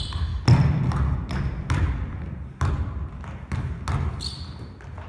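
Basketball being dribbled on a wooden gym floor, a run of bounces about two to three a second, with a few short sneaker squeaks on the court.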